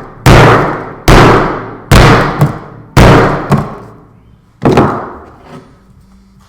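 Hammer blows smashing an iPhone 4S: five heavy strikes about a second apart, each dying away before the next.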